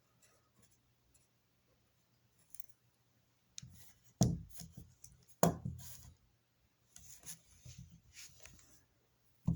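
Cheap spring-assisted folding knife being handled: scattered clicks, knocks and rattles of its loose blade, with two sharper snaps about four and five and a half seconds in.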